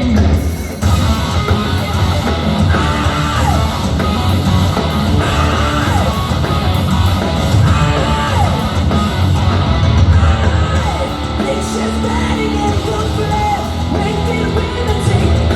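Hard rock band playing live through a concert PA: distorted electric guitars, bass and drums, with a female singer singing and yelling over them. It is loud and continuous, as heard from the audience.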